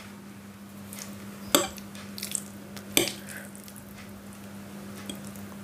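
Metal fork clinking on a glass plate and stirring through soft cooked instant noodles, with two sharper clinks about a second and a half and three seconds in and lighter taps between, over a faint steady hum.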